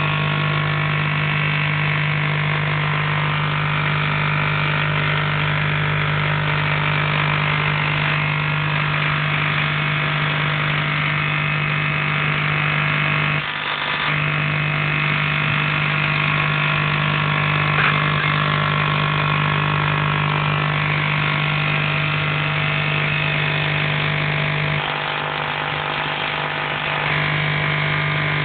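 Tesla coil switched on and running with a loud, steady buzz. The buzz cuts out briefly about halfway through and turns a little quieter for a few seconds near the end.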